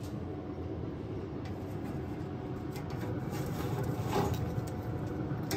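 Metal tongs scraping and clinking on a pellet grill's wire grate as a rack of smoked ribs is gripped and lifted, most clearly about four seconds in and again at the end, over a steady low rumble.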